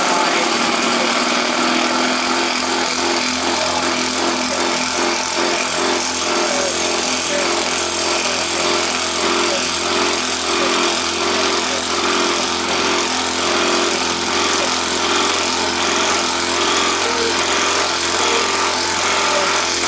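Bosch GDR 12V-EC compact cordless impact driver running steadily under load, hammering as it drives a hex-head screw into wood through a nut-driver bit.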